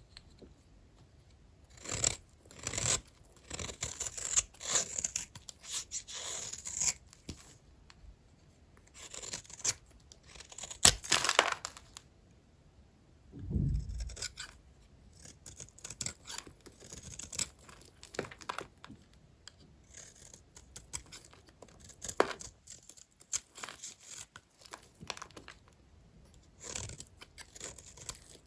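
Knife cutting through small dry bars of old hotel soap: bouts of crisp scraping and crunching strokes with short pauses between them. About halfway through there is one dull low thump.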